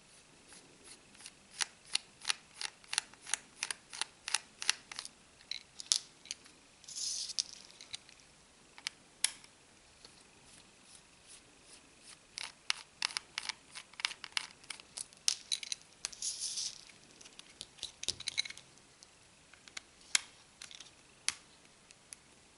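Small Phillips screwdriver turning tiny screws out of a phone's plastic frame: runs of quick sharp clicks, about four a second, with scattered single clicks and two brief scrapes.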